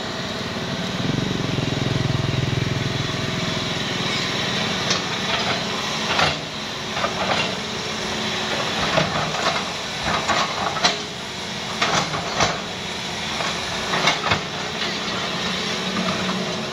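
Hitachi hydraulic excavator's diesel engine running steadily as the machine swings and digs, its low note swelling about a second in, with irregular sharp knocks and clicks from the working machine.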